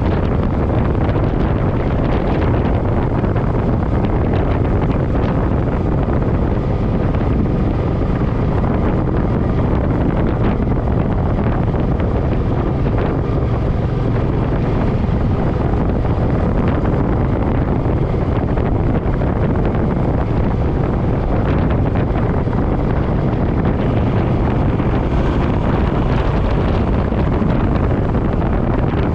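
Steady wind rush on the microphone while riding a Suzuki M50 motorcycle at road speed, with its V-twin engine running underneath.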